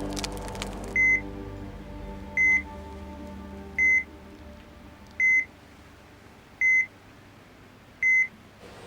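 Hospital heart monitor beeping six times at one steady high pitch, about one beep every second and a half, over music that fades away.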